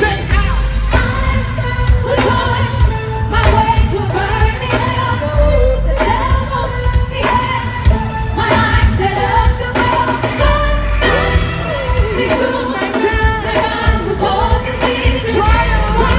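Live gospel band music with singing over drums and heavy bass, keeping a steady beat.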